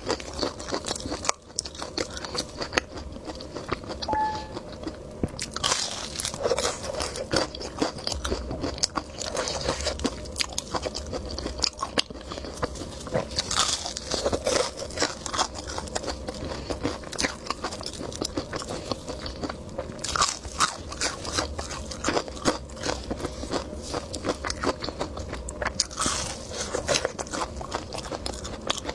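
Close-miked chewing and biting of a taiyaki, a fish-shaped filled cake: a steady run of small mouth clicks, with louder flurries every several seconds.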